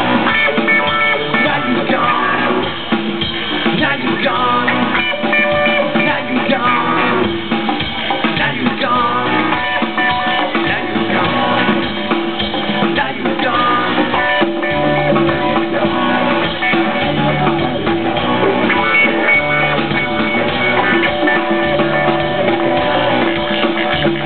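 Live rock band playing a song: electric guitars, bass and drum kit, heard from the audience in front of an outdoor stage.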